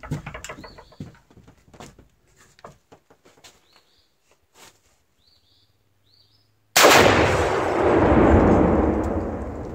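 A rifle shot sets off Tannerite packed against a plasma TV: one sudden, very loud blast about seven seconds in, followed by a rolling rumble that slowly fades.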